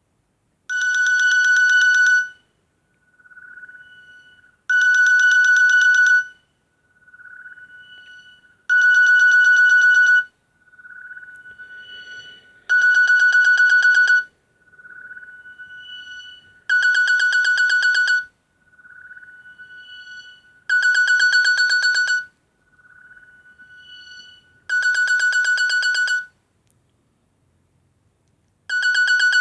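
Nokia N70 ringtone playing: a loud, buzzy electronic tone held for about a second and a half, repeating every four seconds, with a softer, quieter tone between each ring.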